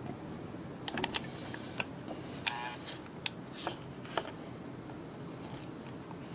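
A series of light clicks and taps from handling small metal parts and tools while soldering a wire, with one sharper metallic clink that rings briefly about two and a half seconds in, over a steady low background noise.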